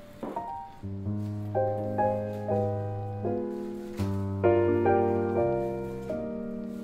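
Background piano music: a slow run of single notes and chords, each struck and left to ring and fade.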